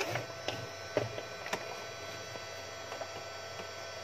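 Repaired Homage Axiom 2002 inverter/UPS switched on and running with a steady electrical hum, no longer tripping at power-on. A few light clicks come in the first second and a half.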